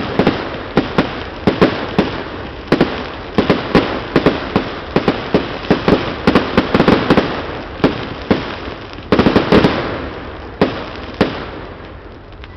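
Aerial fireworks bursting in a rapid barrage of loud, sharp bangs, many in quick succession, thinning out near the end.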